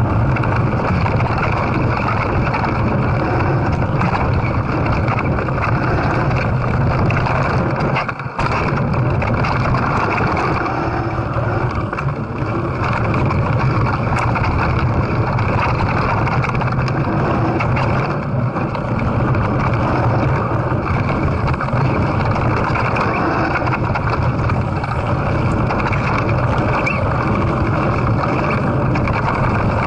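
Wind rushing over a handlebar-mounted camera's microphone and the Calibre Bossnut mountain bike rattling over a rough dirt trail at speed. The noise is loud and continuous, with a brief dip about eight seconds in.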